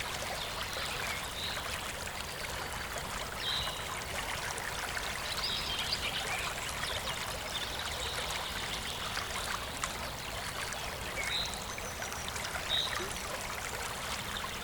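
Stream water running steadily, with short, high bird chirps every few seconds.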